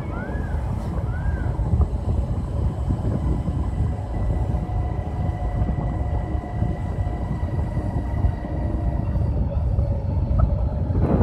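Wind buffeting the microphone of a moving vehicle, a dense, fluttering rumble with the vehicle's running noise underneath. A few short rising-and-falling chirps sound in the first second or so.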